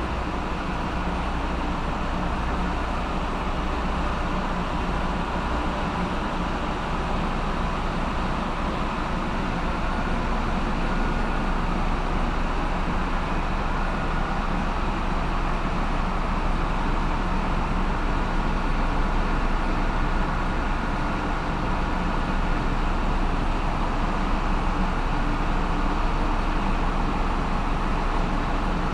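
Steady, loud din of a bulk carrier's engine-room machinery running, with a constant deep hum beneath a dense mechanical noise.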